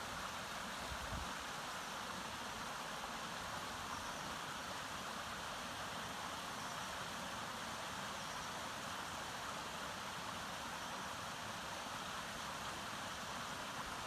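Sespe Creek, a mountain stream, running over rocks: a steady, unbroken rush of water.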